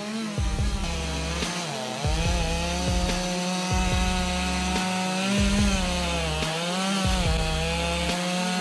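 Chainsaw engine running at high revs while cutting into wood, its pitch dipping and recovering every second or two as the chain bites, over a deep low throb that comes and goes every second or so.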